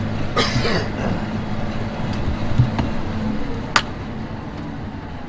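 Tractor engine running steadily under load in the field, with a short rushing noise about half a second in and a single sharp click just before four seconds.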